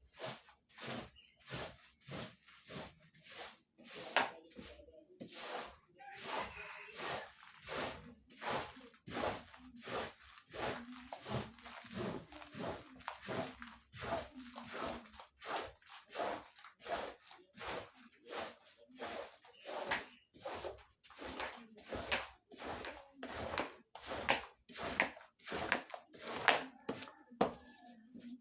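Brush scrubbing a carpet in quick repeated strokes, about two to three a second.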